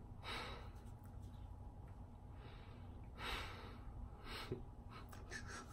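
A man's breathing: three soft audible breaths out through the nose or mouth, like sighs or a stifled laugh, with a faint steady room hum underneath.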